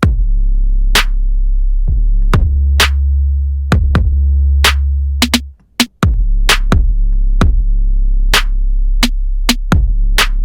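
Drum-machine hip-hop beat playing: a deep bass held under sharp kick and hi-hat hits. The whole beat drops out for about half a second around five and a half seconds in, then comes back.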